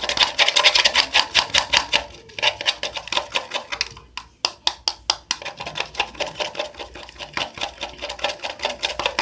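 Utensil stirring fast in a bowl, a rapid, even clicking of several strokes a second as a thick shampoo, glue and salt mixture is mixed into slime; the stirring pauses briefly about four seconds in.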